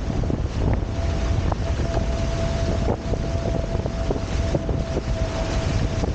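Wind buffeting the microphone over water rushing past the hulls of a Hobie Tiger F18 catamaran sailing at speed. A thin, steady hum joins about a second in.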